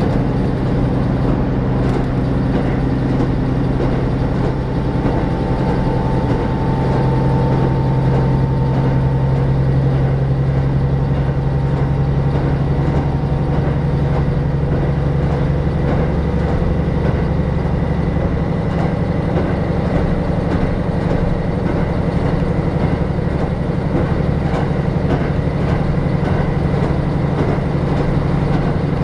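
Diesel railcar running along the line, heard from inside the passenger cabin: a steady engine drone mixed with wheel and rail noise. The deepest rumble eases about two-thirds of the way in.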